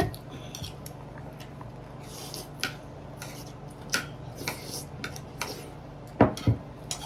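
Scattered light clinks of cutlery against dishes during a meal, with two louder knocks about six seconds in, over a steady low hum.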